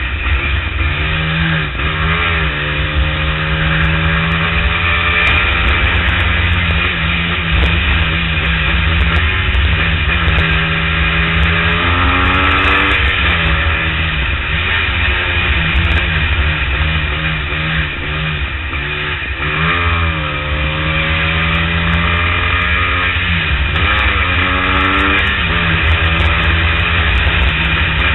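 Motorcycle engine running at freeway speed under a heavy low wind rumble. Its pitch rises and falls several times as the throttle opens and closes.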